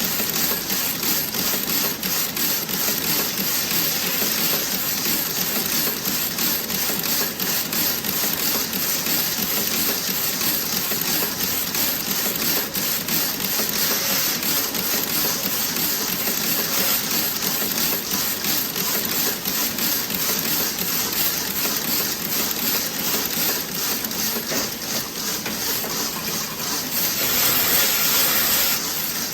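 Toe-sock knitting machine running with a fast, dense clicking rattle over a mechanical hum. Near the end a loud hiss comes in for about two seconds.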